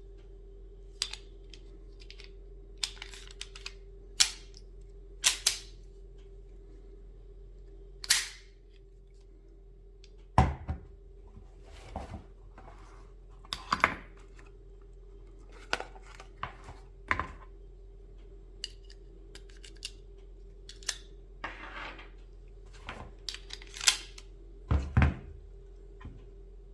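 Walther PP gas pistol being handled: a long irregular series of sharp mechanical clicks and clacks, some close together in pairs.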